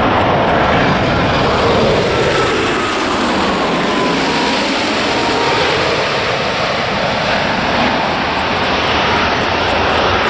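Jet airliner passing low overhead on its landing approach: a loud steady engine rush whose tone sweeps as it goes by, with a faint whine that falls in pitch partway through.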